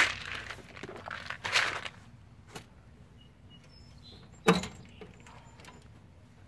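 Hands handling air-conditioner wiring and tools: rustling and small clicks in the first two seconds, then one sharp click about four and a half seconds in.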